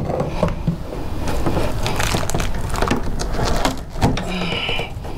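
A nail being pulled out of a wooden shipping crate: a string of scrapes, knocks and creaks of wood and metal, with a short high-pitched squeal about four seconds in.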